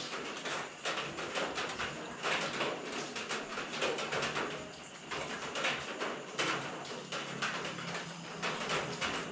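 A hand tool working the mounting bolts of a rear master cylinder guard on a motorcycle: bursts of quick metallic clicks, stroke after stroke, with short pauses between.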